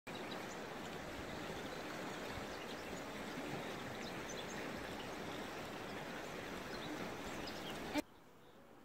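Steady rush of a flowing stream, with small birds chirping now and then; the sound cuts off suddenly near the end.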